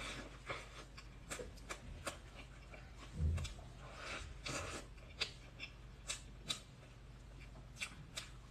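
Close-miked eating of soft cream cake: faint wet lip smacks and mouth clicks at irregular intervals, with a soft low thump about three seconds in.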